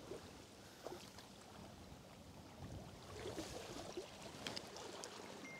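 Faint riverside ambience: a low, even water noise with a few soft clicks and taps scattered through it.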